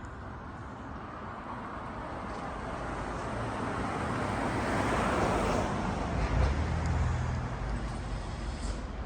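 A road vehicle passes by. Its tyre and engine noise grows steadily to a peak about five seconds in, then fades, leaving a low rumble that trails off over the next couple of seconds.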